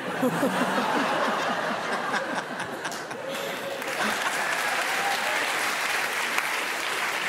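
Studio audience laughing and applauding in reaction to a joke, with the laughter heard mostly in the first couple of seconds.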